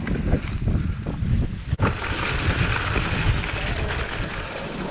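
Mountain bike riding over rough trail: wind buffeting the camera microphone over a low rumble of tyres, with the bike rattling and knocking over bumps. Just under two seconds in the sound breaks off and gives way to a steadier rush of tyres and wind.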